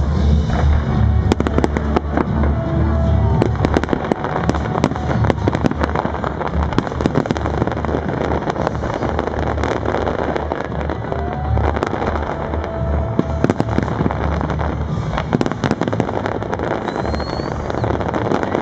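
Fireworks display: a dense, rapid run of bangs and crackles from aerial shells, starting about a second in, over loud music with a heavy bass.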